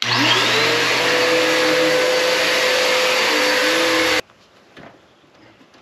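Vacuum cleaner switched on, its motor whining up to speed and then running steadily, before cutting off suddenly after about four seconds.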